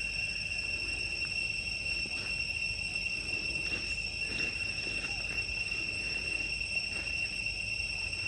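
Insects droning steadily on one high pitch, with a fainter tone above it, over a low background rumble.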